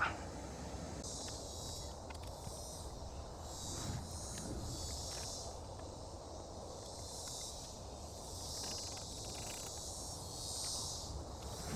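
Insects chirring in a high-pitched buzz that swells and fades every second or two, with a few faint clicks and knocks from a car headlight assembly being worked loose.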